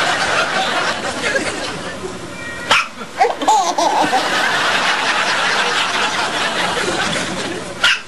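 Laughter runs throughout, with two sharp baby hiccups standing out, one about three seconds in and one near the end.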